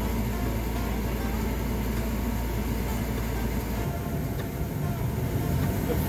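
Gas furnace starting up after being switched back on: a steady mechanical hum from its draft inducer motor ahead of burner ignition. The deepest part of the hum drops away about four seconds in.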